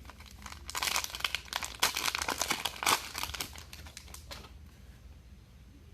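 Trading-card pack wrapper being torn open and crinkled by hand: a dense crackle for about four seconds that then dies away.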